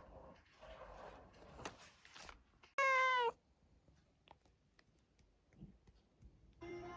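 A Siamese cat gives one loud meow lasting about half a second, dipping in pitch at the end, after a few seconds of faint rustling.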